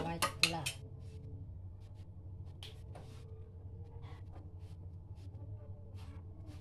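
Glass pot lid set down on a stainless steel cooking pot, clinking a few times in quick succession in the first second. Then a faint steady low hum with scattered soft ticks.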